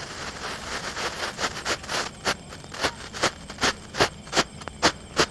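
Jumbo Flash ground-fountain firework burning: a hiss as it catches, then sputtering in sharp, evenly spaced pops about three times a second as it throws out sparks.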